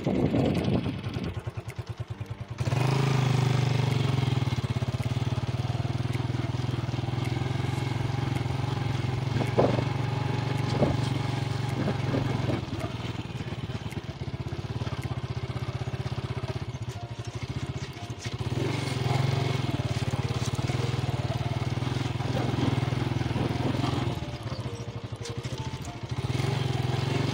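Honda motorcycle engine running while riding along a bumpy dirt track. It picks up about three seconds in, eases off twice (around the middle and near the end), and a couple of brief knocks come around ten seconds in.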